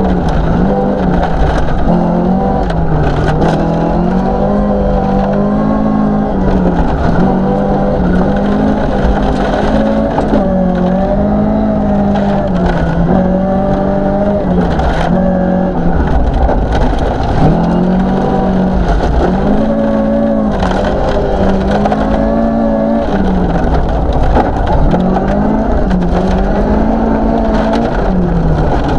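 1972 Toyota Celica 2.0GT's twin-cam four-cylinder engine revving hard and dropping back again and again through gear changes and lifts, heard from inside the cabin at rally pace. Gravel crunches and stones rattle against the underside throughout.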